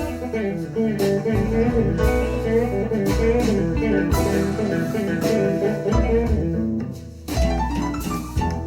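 Instrumental passage of a blues song, with guitar over bass and a steady beat of sharp hits, played back through Q Acoustics 3010 bookshelf speakers and picked up by a microphone in the room; no singing.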